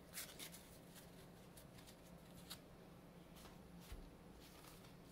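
Near silence: room tone with a faint low hum and a few faint clicks.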